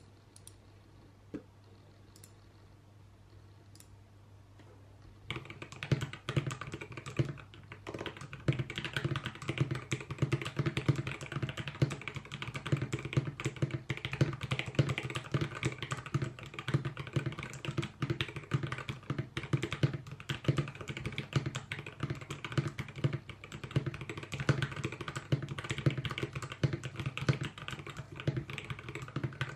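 Typing on a custom 60% mechanical keyboard with lubed C3Equalz Banana Split linear switches on a carbon fibre plate in a bamboo case. After a near-quiet start with a single click, fast, steady keystrokes begin about five seconds in.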